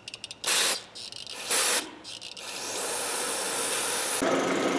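Two short hisses, then a drill press fitted with a small wire brush starts up, its sound rising for a couple of seconds and settling into a steady running hum near the end.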